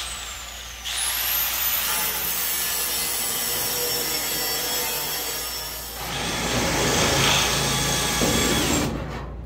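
Electric angle grinder spins up with a rising whine and grinds a tack weld off a steel flat bar on a car hood's side rail, so the bar can flex. About six seconds in a cordless drill takes over, drilling into the bar, and stops shortly before the end.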